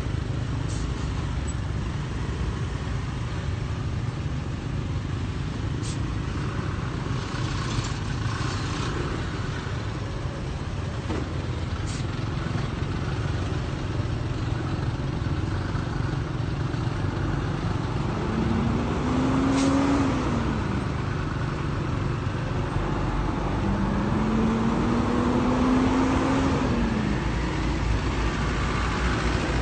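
Road traffic heard from a moving motorbike among trucks, a coach and other motorbikes: a steady rumble of engines and tyres. In the second half, two pitched tones, each a couple of seconds long, rise slightly and then fall away.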